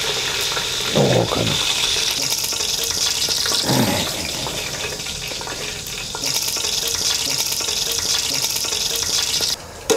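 Hot cooking oil sizzling steadily in a steel pot on a gas-cylinder burner as quail fry in it; the sizzle cuts off suddenly near the end.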